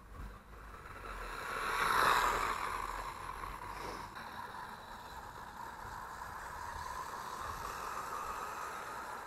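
MJX Hyper Go 1/14-scale RC car's brushless electric motor whining as it drives across grass. The whine swells to its loudest about two seconds in as the car passes close, then carries on steadier.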